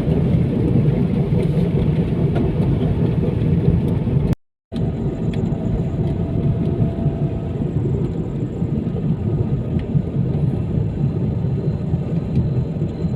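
Car driving slowly on a forest road, a steady low engine and tyre rumble, broken by a brief gap of silence about four seconds in.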